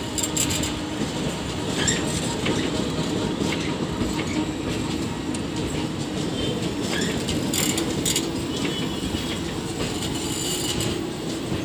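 Passenger train coaches rolling slowly along a platform: a steady rumble of wheels on rail, with scattered short squeaks and clicks from the wheels and couplings.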